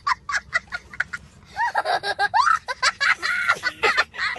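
A young child laughing hard: quick short bursts at first, then longer high cries that swoop up and down.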